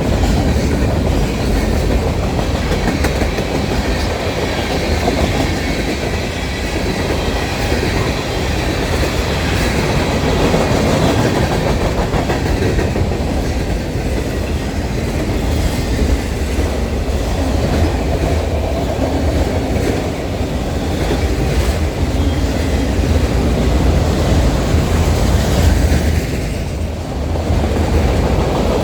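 Canadian National train rolling past at a steady pace: a continuous rumble with rail cars' wheels clattering over the rail joints, and no horn.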